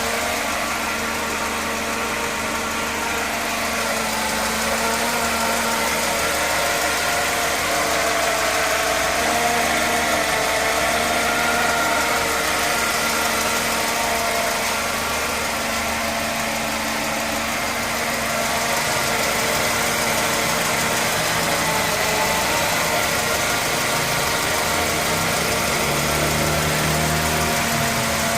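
Mercedes-Benz W124 E220 four-cylinder engine idling steadily with the fan belt removed, a set of steady whining tones riding over the idle. The owner suspects the noise is the timing chain.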